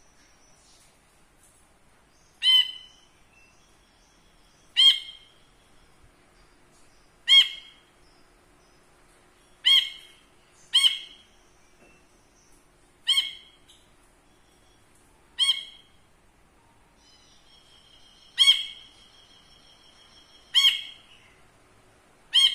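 A caged brinji kelabu, a bulbul, giving a short, sharp call ten times, about every two seconds, each call dying away quickly.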